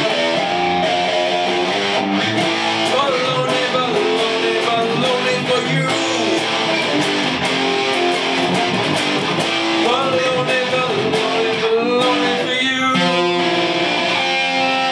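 Electric guitar being strummed, playing a steady run of ringing chords.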